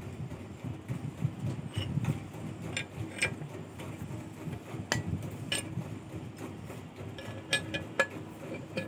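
Irregular sharp metallic clicks and clinks as steel wire clamped in a bench vise is bent by hand to form a torsion spring, with a quick run of clicks near the end, over a low steady rumble.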